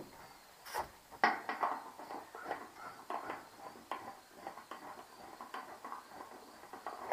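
Phillips screwdriver turning a screw into a patio heater's thin sheet-metal housing: irregular small metallic clicks and scraping, with a couple of sharper clanks in the first second or so.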